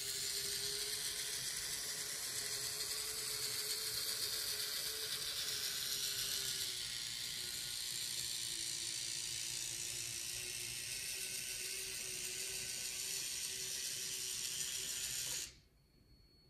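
BRIO 33930 Sky Train battery-operated locomotive, a four-wheel-drive toy engine, with its small electric motor and gearbox running steadily as it pulls nine loaded container cars up a ramp on wooden track. The motor's hum drops slightly in pitch about seven seconds in, and the sound stops suddenly near the end.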